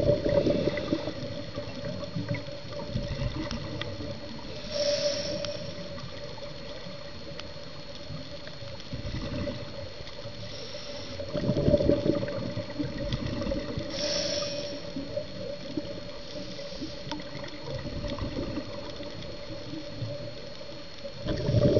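Underwater sound of a scuba diver's regulator: bursts of exhaled bubbles rumble about every nine seconds, with a short hiss of inhalation between them, over a steady hum.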